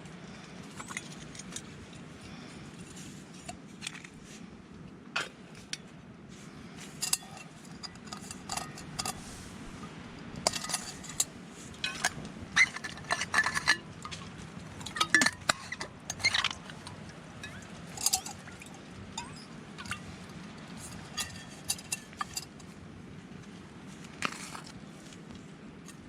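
Metal camping cookware and utensils clinking and clattering as they are handled, in a run of short sharp knocks, some ringing briefly, busiest in the middle, over a steady low background noise.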